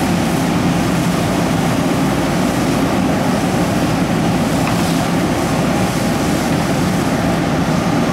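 Steady drone of a fire engine running its pump, under the even hiss of a hose line spraying water onto a burnt-out pickup truck.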